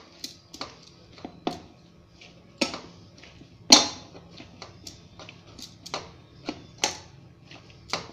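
Hands mixing samosa dough in a steel bowl: irregular sharp clicks and knocks of the bowl and the wrist bangles, about one or two a second, the loudest a little under four seconds in.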